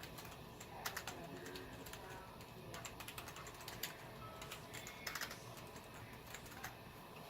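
Typing on a computer keyboard: irregular, scattered clusters of keystroke clicks.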